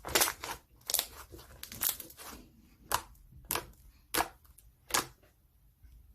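About seven short, crisp tearing sounds, each under half a second, coming every half second to a second.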